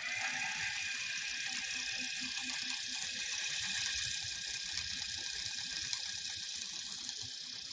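Cowboy 797 industrial leather sewing machine, driven by a servo motor set to 1000 RPM, running steadily at its normal sewing speed with the treadle held down and no material under the foot.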